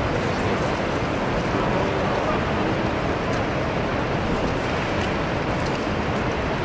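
City street ambience: a steady wash of traffic and pedestrian crowd noise with indistinct voices and scattered small clicks and footsteps.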